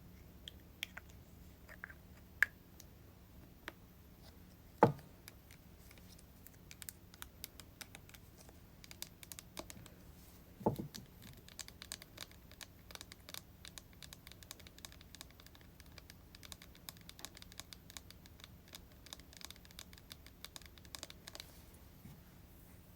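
Tapping on hair-product bottles and containers: scattered light taps, two heavier knocks about five and eleven seconds in, and a dense run of quick clicking taps through the middle.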